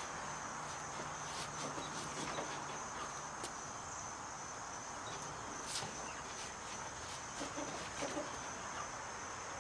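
Outdoor ambience of insects trilling steadily at a high pitch, with a low steady hum that fades out about three seconds in and a few faint scattered clicks.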